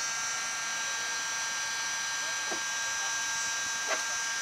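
Electric heat gun running steadily with a high motor whine, blowing hot air onto the kayak's plastic hull to melt a hole shut. There is a light click about four seconds in.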